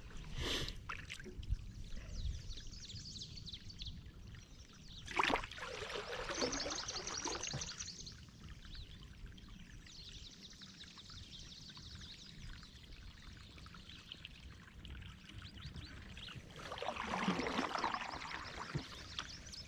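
Water trickling and pouring through a leaky beaver dam, with one sharp knock about five seconds in and a louder wash of water near the end.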